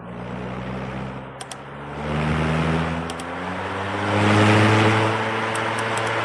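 Vornado Model 80 high-velocity box fan motor speeding up: its hum rises in pitch and the rush of air grows louder over the first few seconds, then holds steady. A few faint short high ticks sound along the way.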